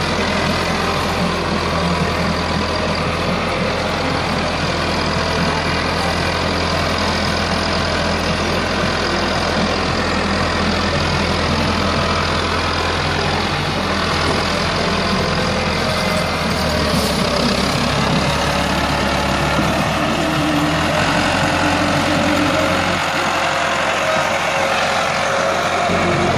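Massey Ferguson 385 tractor's diesel engine running steadily under load while pulling a trolley heaped with sand.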